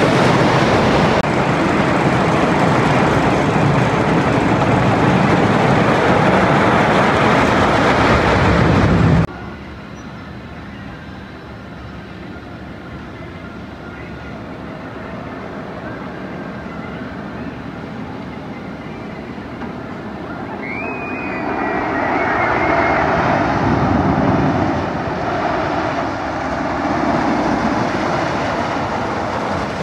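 Hoosier Hurricane wooden roller coaster train rumbling loudly along its track overhead, cut off abruptly about nine seconds in. After that the coaster is fainter and farther off, and its rumble builds again about two-thirds of the way through.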